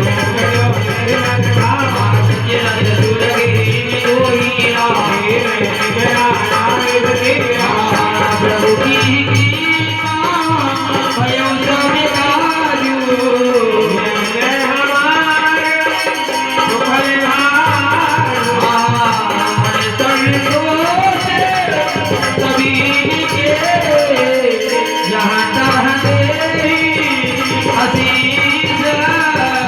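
Indian devotional music: a wavering melody over a rattling percussion accompaniment.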